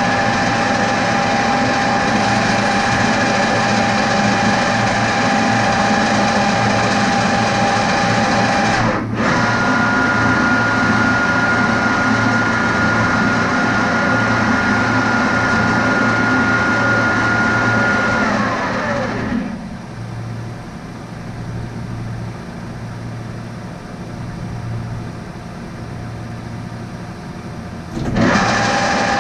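Metal lathe motor running with a steady whine. About nine seconds in it cuts out for a moment and picks up again at a higher pitch. Around eighteen seconds it is switched off and winds down, leaving a quieter hum, and it starts up again abruptly near the end.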